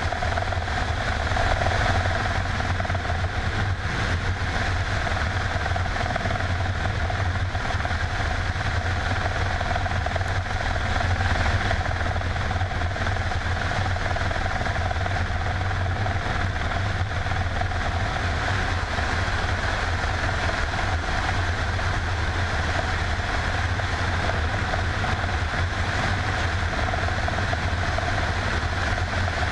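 Mil Mi-24 helicopter in flight, heard from a camera mounted on its airframe: the twin Isotov TV3-117 turboshaft engines and the rotor make a loud, unchanging drone with a deep low hum and a steady higher whine.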